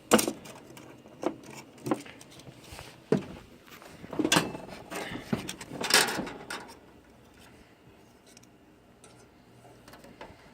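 Knocks and clatters from a desktop computer case and its parts being handled: about half a dozen sharp knocks and rattles over the first six seconds, then only faint handling noise.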